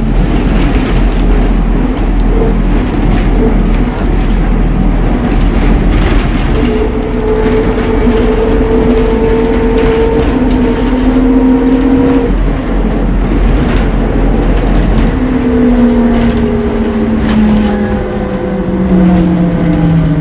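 Ikarus 280T articulated trolleybus running, a steady low hum and road rumble under the whine of its electric traction motor. The whine climbs slightly as the bus gathers speed, then falls steadily from about 15 s in as it slows down.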